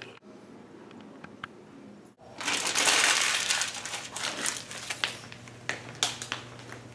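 Paper being crumpled up in the hands, a loud crinkling for about two seconds starting a couple of seconds in, which then thins out into scattered clicks and rustles.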